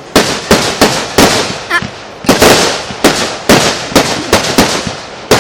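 Fireworks exploding in quick succession: about a dozen sharp bangs in uneven clusters, each trailing off in a fading rumble.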